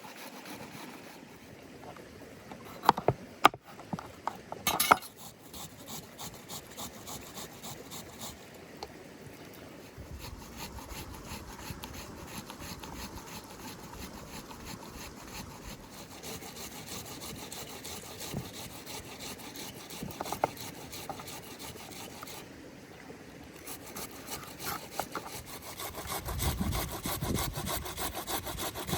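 Rhythmic scraping or sawing strokes, with a few sharp knocks about three to five seconds in and growing louder near the end.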